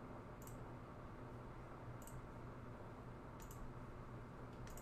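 Computer mouse button clicking faintly, four times, the last two as quick double clicks, over a low steady hum.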